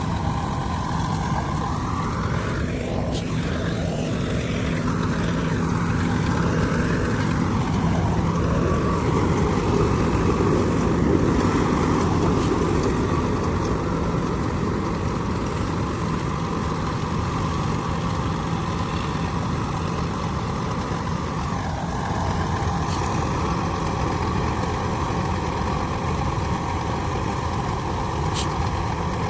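Dasmesh 7100 combine harvester running steadily, its engine giving a continuous drone with a brief change in pitch a few seconds in.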